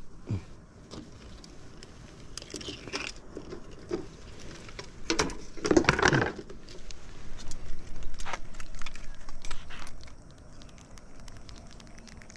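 Scattered clicks and short rattles of a ring crab net and a blue crab being handled to work the crab free, busiest about halfway through.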